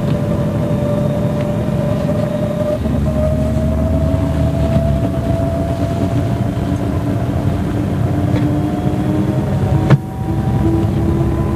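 MCW Metrobus double-decker's Cummins diesel engine running under way, with a whine that rises slowly in pitch. Near the end a sharp knock comes as the engine sound briefly drops.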